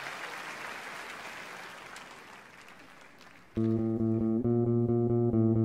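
Applause dying away, then about three and a half seconds in a loud electric guitar and bass intro kicks in suddenly, its chords struck again and again.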